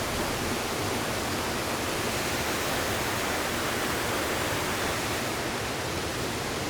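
Steady rushing of river water tumbling over a waterfall, a constant even hiss.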